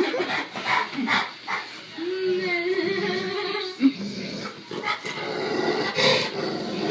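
Labrador retriever making a string of short grunts, with one long, drawn-out, wavering grunt from about two seconds in that lasts nearly two seconds.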